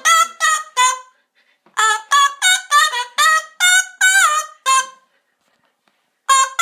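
Panama amazon parrot singing a run of short, clipped pitched notes, about three a second: four notes, a pause of about a second, then a longer phrase of about ten notes, one of them gliding up in pitch.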